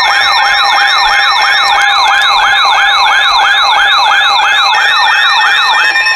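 Electronic yelp-style siren tone used as an alert sound, sweeping rapidly up and down about four times a second over steady background tones; it stops just before the end and gives way to steady alert tones.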